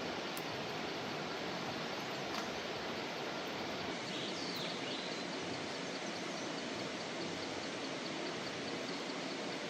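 Steady rushing of a swollen, flooded mountain stream: a constant even noise with no breaks.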